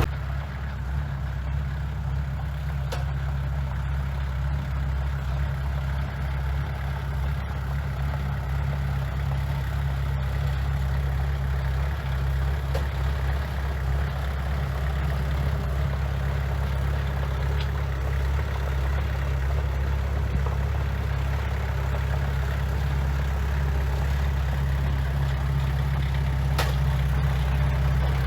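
Heavy diesel engine of construction equipment running steadily, a deep, even hum with no change in speed.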